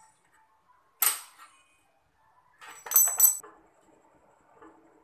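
Quarter-inch steel flat-bar patch pieces clinking against a steel tank: one sharp clank about a second in, then two or three ringing metallic clinks around three seconds in. A faint steady hum follows.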